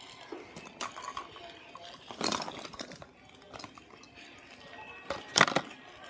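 Hard objects knocking and clattering against a plastic shopping basket in a few separate bursts, the loudest about two seconds in and again near the end.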